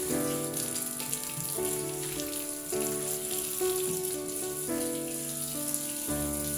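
Background music of gentle held chords that change every second or so. Under it runs a steady hiss of water, like a kitchen tap running into a sink.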